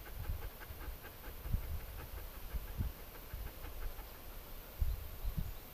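Irregular low rumbles and thumps, the strongest about a second and a half in and near the end, over faint quick ticking at about four ticks a second in the first half.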